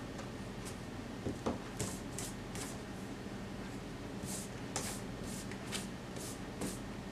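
Pencil and hand rubbing on drawing paper: quick runs of short scratchy strokes, with two soft knocks about a second and a half in.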